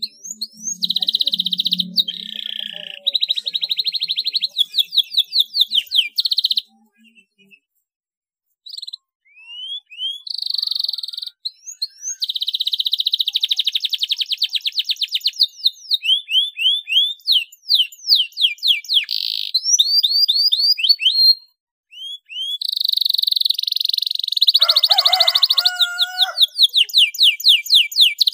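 Domestic canary singing a long song of fast rolls and rattling trills, broken by runs of quick rising chirps. The song stops briefly about seven seconds in and again around twenty-one seconds.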